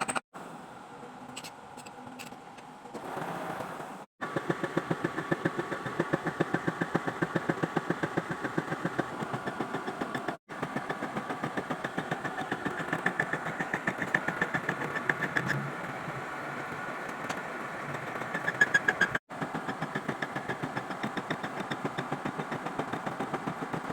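Metal lathe running, with a regular pulse about five times a second. The sound breaks off briefly three times.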